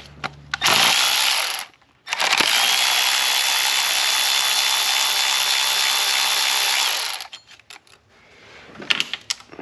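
Cordless electric ratchet loosening a bracket bolt: a short burst, then a steady run of about five seconds with a high whine, followed by a few light clicks.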